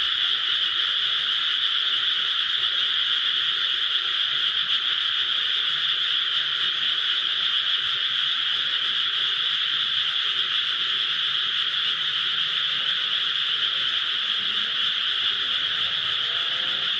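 A dense chorus of many frogs calling together in a rice paddy, so many overlapping voices that they merge into one steady, unbroken high-pitched trilling.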